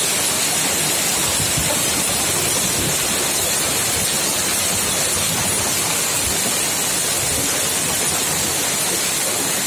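Sudden hail shower: hailstones and rain pelting down as a dense, steady hiss.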